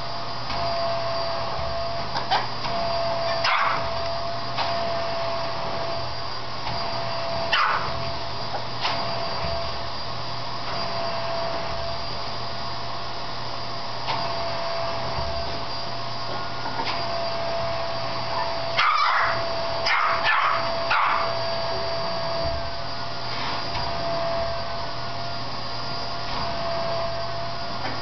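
Vacuum cleaner running steadily while a Shih Tzu barks and yips at its hose nozzle in short bursts. There are a few spaced-out barks, then a quick run of them about two-thirds of the way in.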